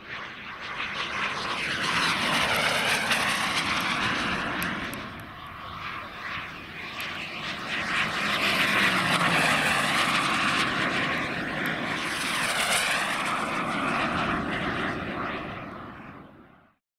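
Kingtech 140 gas turbine of a CARF Ultra Flash RC sports jet on fast flypasts: a loud jet roar and whine that swells twice as the jet passes, its pitch sliding downward on each pass, then cuts off suddenly near the end.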